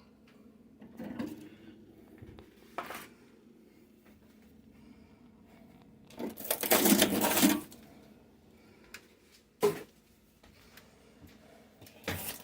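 Food packages and containers being handled and moved while a refrigerator is emptied: scattered knocks and clatter, with one louder rustling, clattering stretch of about a second and a half in the middle.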